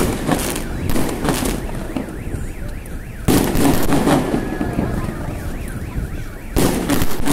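Fireworks bursting and crackling steadily, with a sharp bang about three seconds in and another near the end. Underneath, a car alarm warbles up and down.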